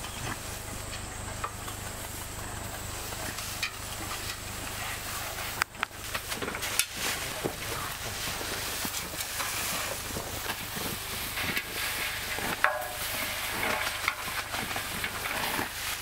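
Rustling and crackling of dry rice stalks being handled, with many small clicks.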